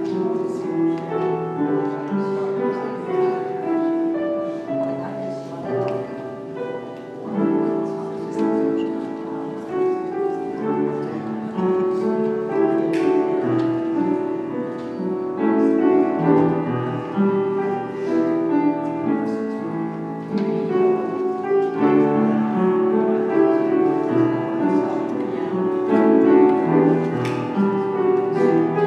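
Piano playing slow classical-style music of layered, sustained chords.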